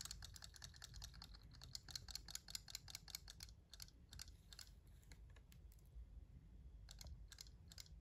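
Faint, rapid, irregular small clicks, dense for about the first three and a half seconds, then sparse, with a couple more near the end, over a low hum.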